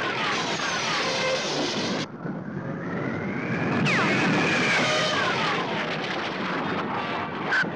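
Cartoon jet-plane sound effect: a jet engine's rushing roar with repeated falling whistles as the plane streaks past. The roar drops off about two seconds in, then swells again with a sharp sweeping whine about four seconds in as the jet dives past again.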